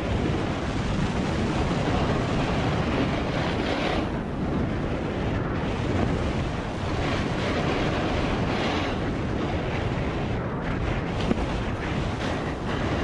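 Steady rush of wind buffeting the microphone of a snowmobile riding at speed, with the machine's running noise mixed in underneath.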